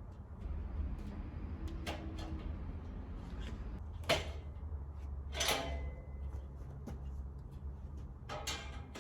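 Steel shelving uprights and braces being handled and fitted together: a few sharp metal knocks and short scraping slides, the loudest about four seconds in, over a steady low hum.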